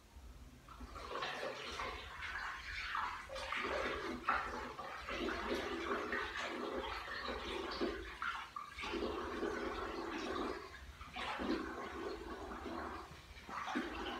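Water splashing and sloshing as a small soapy dog is rinsed by hand, in uneven bursts with short breaks.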